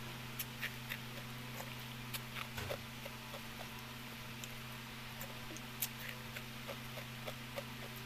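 Soft, scattered clicks and scrapes of a plastic spoon in a paper cup of halo-halo, with quiet eating sounds, over a steady low hum.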